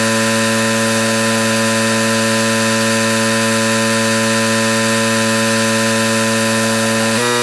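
Pressure washer engine running at a steady speed with a buzzing drone, its pitch shifting slightly near the end.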